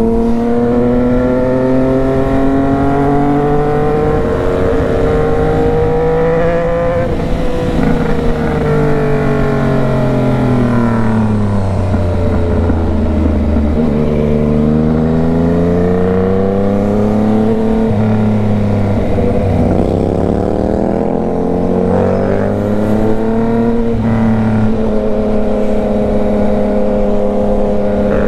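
Yamaha MT-09's three-cylinder engine heard while riding, with wind noise. The engine note climbs steadily for the first several seconds, falls away for several seconds as the bike slows, then picks up and rises again.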